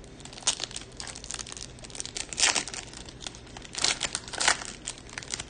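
Silvery foil wrapper of a Topps Chrome baseball card pack being torn open and crinkled in the hands: a run of sharp crackles, loudest about halfway through and again near the end.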